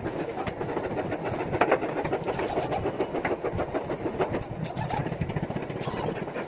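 Handheld electric drill running in short spells as it drives screws down through a wooden strip into particle board, over a steady mechanical background noise.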